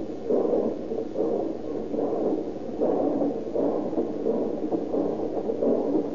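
Radio-drama sound effect of a steam train under way: rhythmic chuffing, about two beats a second.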